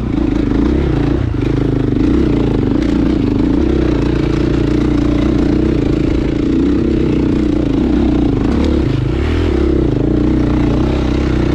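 Dirt bike engine running as the bike is ridden along a trail, its pitch rising and falling with the throttle.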